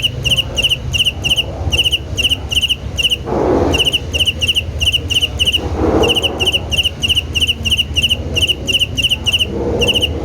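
A cricket chirping steadily, short high chirps at about three a second, pausing briefly every so often. Under it a low steady rumble, with two brief rushing noises and a third near the end.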